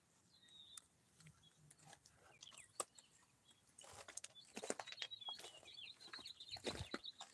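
Faint outdoor ambience of small birds chirping, the chirping getting busier in the second half, with scattered soft clicks and scuffs.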